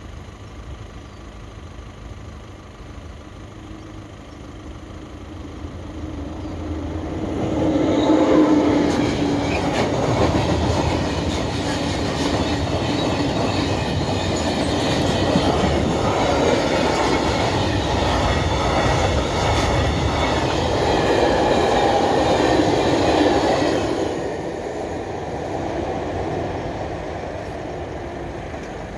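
A freight train of log-laden wagons rolls through the level crossing. It grows loud from about seven seconds in, stays loud while the wagons pass, and drops away after about twenty-four seconds.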